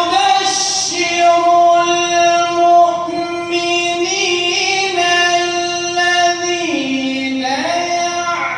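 Melodic Quran recitation: a single reciter's voice holding a long, high, sustained phrase, dipping to a lower note for about a second near the end and then rising back up.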